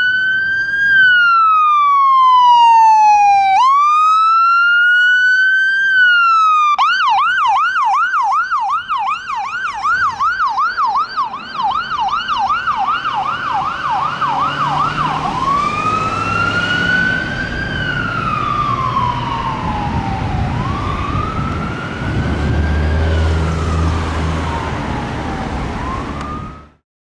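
Rescue ambulance siren running on wail, slowly rising and falling in pitch. About 7 seconds in it switches to a fast yelp of three or four warbles a second, and about 15 seconds in it goes back to the wail. In the second half the vehicle's engine and tyre rumble is heard as it drives past, and the sound cuts off abruptly near the end.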